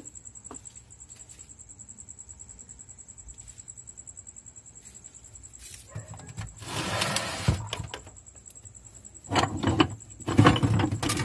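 A clear plastic drawer scraping as it is pulled open about six seconds in, then brass pipe fittings knocking and clinking together as a hand rummages through them near the end.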